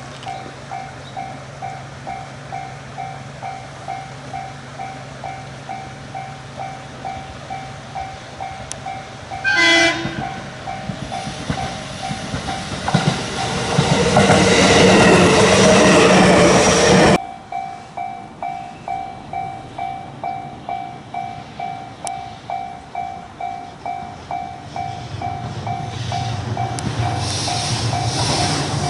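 Japanese level-crossing warning bell dinging steadily, about two strikes a second. Just under ten seconds in, a train gives a short horn blast and passes loudly over the crossing for about seven seconds before the sound cuts off abruptly; the bell keeps ringing, and near the end a low train rumble builds as another train approaches.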